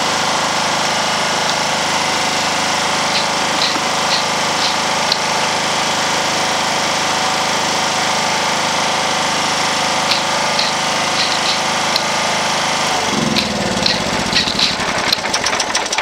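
Portable petrol generator engine running steadily. About 13 seconds in its note drops and it runs rough and uneven, then it cuts off suddenly at the end as it is shut down.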